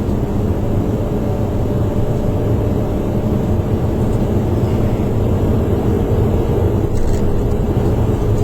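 Car driving at speed, heard from inside the cabin: a steady, even rumble of road and engine noise.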